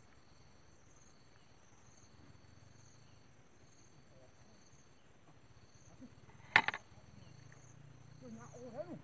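Insects chirping steadily in a repeating high-pitched chorus. A single sharp click about two-thirds of the way through is the loudest sound, and faint voices come in near the end.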